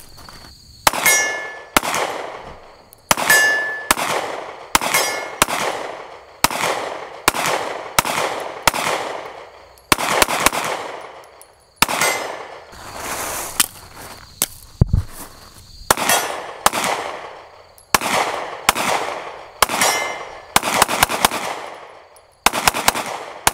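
Glock 43X 9mm pistol firing in quick strings, about two shots a second with a few short pauses, each shot trailing off in echo, and some with a brief metallic ring. A faint steady insect buzz sits underneath.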